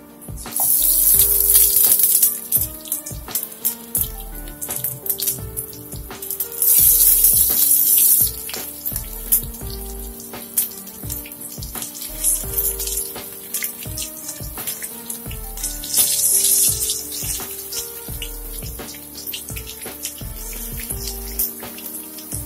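Batter-coated stuffed spiny gourds deep-frying in hot oil: steady sizzling and crackling that surges loudly three times, about a second in, near seven seconds and around sixteen seconds, as more pieces go into the oil. Background music with steady notes runs underneath.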